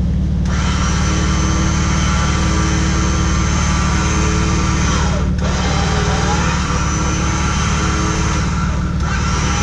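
Electric winch on the front of a Jeep Wrangler whining as it winds in its line, over the steady idle of the Jeep's engine. The whine starts about half a second in, breaks off briefly a little past halfway and stops near the end, its pitch sliding down at each stop and up at each start.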